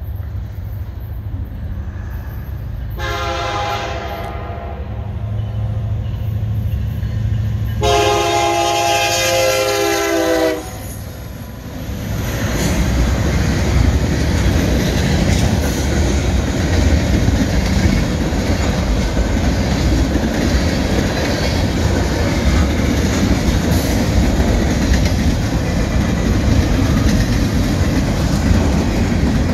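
Freight train approaching with a low rumble, its horn sounding twice: a short blast about three seconds in and a longer one about eight seconds in. From about twelve seconds the train's cars roll past in a loud, steady rumble.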